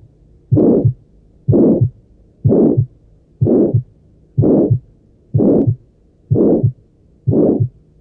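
Heart murmur: a whooshing murmur with each heartbeat, about once a second, each ending in a short low thump.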